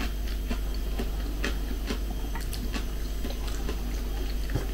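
Quiet eating sounds: soft, irregular clicks of a fork on a plate and chewing of rice.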